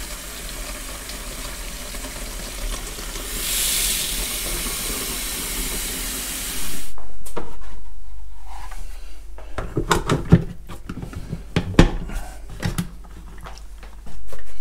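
Warm water running from a kitchen tap into the plastic clean-water tank of a Bissell carpet cleaner, growing louder and brighter partway through. It stops suddenly about seven seconds in. A string of knocks and clatters follows as the plastic tank is handled in the stainless steel sink.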